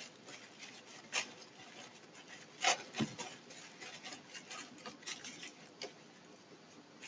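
Soft rustling of a curtain strip being gathered and pressed by hand against a cardboard shoebox, with a few faint taps and clicks.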